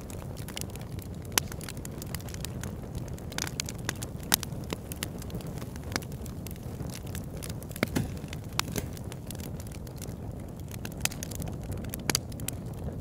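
Wood campfire burning: a steady low rush of flame with frequent, irregular sharp crackles and pops from the logs.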